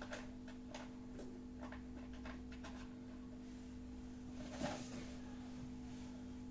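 A steady low electrical hum with a scatter of light clicks and taps over it, the loudest about four and a half seconds in.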